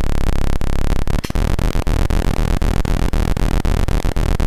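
Two square-wave oscillators XORed together through a logic-gate module in a DIY modular synth, giving a harsh, buzzy electronic tone. About a second in, as the oscillators are sped up, it turns into a pulsing tone that dips about four times a second, a PWM-like sound.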